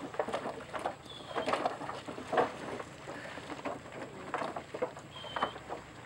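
Swamp water buffalo hooves knocking and scraping irregularly on a wooden log ramp as the animals climb out of the water. Two short high whistles come about a second in and again near the end.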